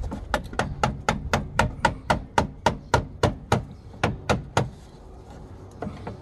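A hammer striking fast and evenly, about four blows a second, with about eighteen blows before they stop a little over four seconds in. The blows are knocking a tight BMW E65 front stabilizer bar mounting loose so it can come off.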